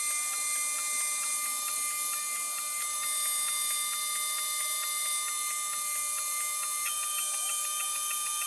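AlgoLaser DIY Kit MK2 diode laser engraver running an engraving test: a steady hiss with a high stepper-motor whine and rapid, regular light ticking as the head moves back and forth. The whine steps up in pitch about seven seconds in.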